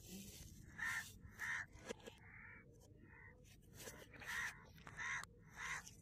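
A crow cawing over and over, about seven short, faint caws at uneven intervals.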